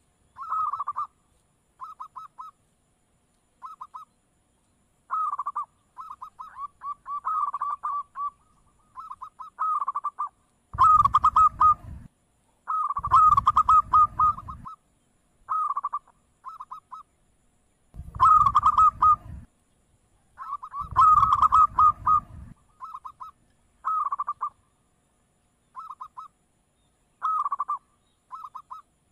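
Zebra dove (perkutut) cooing: short, clipped coo phrases repeated every second or so. Four louder, longer phrases come in the middle, each with a low rumble underneath.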